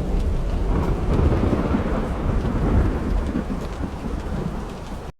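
Thunder rumbling over steady rain. The rumble swells about a second in and slowly eases off, and the sound cuts off abruptly just before the end.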